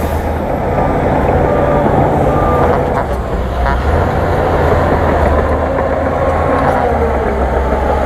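Heavy diesel engines of a crawler bulldozer and a loaded dump truck running steadily under load as the dozer pushes the truck through mud. Short repeated beeps from a backup alarm sound during the first two seconds.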